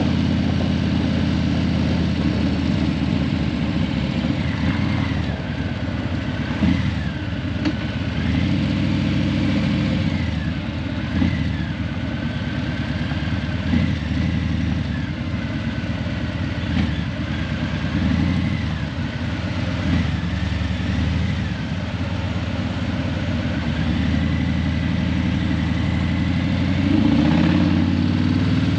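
Harley-Davidson Breakout 117's Milwaukee-Eight 117 V-twin running through Vance & Hines Eliminator 300 slip-on mufflers while riding in slow traffic, a deep steady exhaust note that gets louder near the end as the throttle opens. A faint high tone wavers up and down in the background through the middle.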